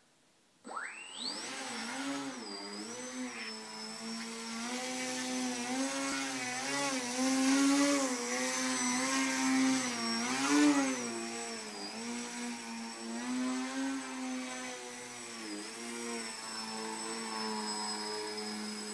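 Electric RC plane's Blue Wonder 1500kv brushless motor and propeller spinning up about a second in, then whining steadily, its pitch rising and falling with the throttle. It is loudest twice in the middle as the plane passes close by.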